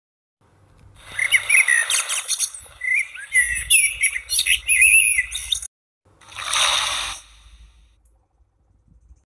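Recorded baby-bird chirping played from the sound book's small speaker: a run of quick, high tweets lasting about five seconds. A short burst of noise follows about two-thirds of the way through.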